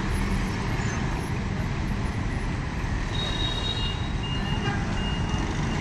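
Samco City i47 city bus running as it pulls away, with a steady low engine rumble amid street traffic. From about three seconds in, a high electronic beep repeats a little under twice a second.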